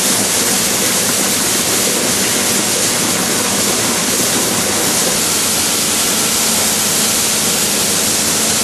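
Loud, steady rushing of water, like a hose or spray jet, with no pitch or rhythm; it cuts in and cuts out abruptly.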